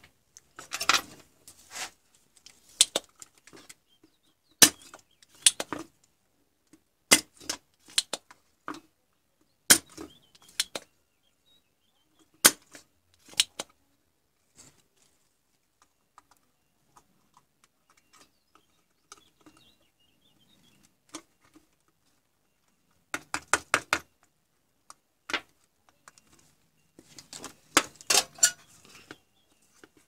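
Spring-loaded desoldering pump snapping as it is fired and re-cocked, sucking solder from a circuit board's joints: sharp clicks every second or so, a quieter stretch midway, then quick runs of clicks near the end.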